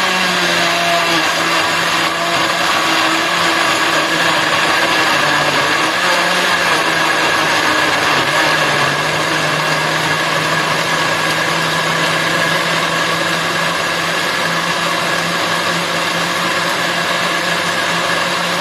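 Moulinex smoothie blender running steadily at full speed, puréeing chunks of tomato and pepper into a smooth liquid.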